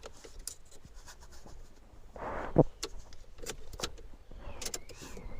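Car keys being handled, with light clinks and scattered clicks and a short rustle about two seconds in. Near the end a faint warbling tone begins.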